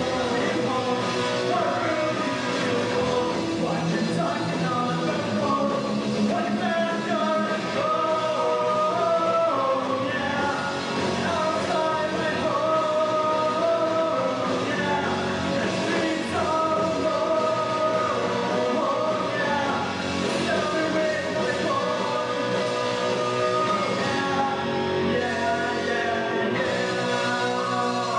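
Skate-punk band playing live: electric guitar, bass and drums with a sung lead vocal.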